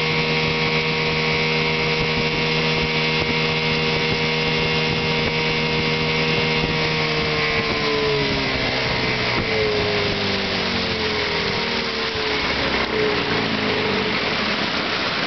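1984 Chrysler-built Sea King 15 hp two-stroke outboard motor running steadily at high throttle with the boat under way. About halfway through it is throttled back and its pitch falls over several seconds as it slows toward idle.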